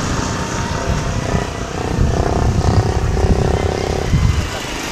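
A motorcycle engine running as it passes on the road, heard from about a second in until about four seconds, over low wind rumble on the microphone.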